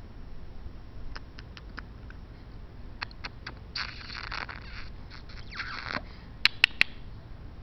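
A large puppy gnawing and chewing on something held between its paws, with scattered small clicks and scraping. Three sharp, loud clicks come close together about six and a half seconds in.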